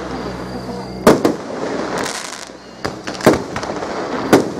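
Aerial fireworks shells bursting in a quick series of four or five sharp bangs, the loudest about a second in, over a steady crackle and a brief high hiss.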